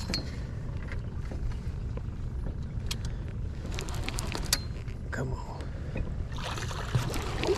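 Boat motor running low and steady, with scattered sharp clicks and knocks on the boat, and a rush of hissing noise near the end.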